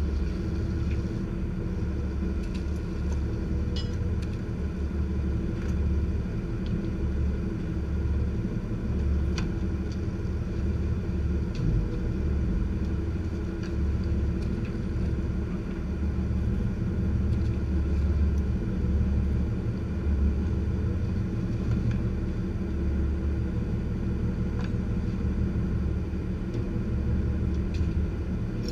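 Lobster boat's engine running steadily, with wind buffeting the microphone and a few faint knocks of traps on the deck.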